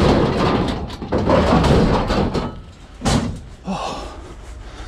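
Metal scrap appliances being shoved into the back of a van: sheet metal scraping and clattering against the load, with a sharp bang about three seconds in.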